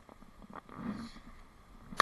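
Faint rush of shallow stream water running over rocks, with a soft bump about halfway through and a sharp click right at the end.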